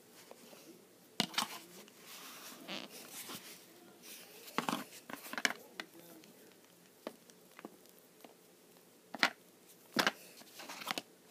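Hands squeezing and kneading a crumbly dough of cornstarch and shampoo, giving irregular crunchy crackles and sharp clicks with soft rustling between them.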